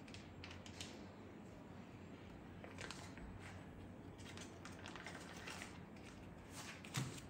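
Faint crinkling of a paper butter wrapper and soft taps as pieces of butter are laid into a small terracotta dish, with a dull thump near the end.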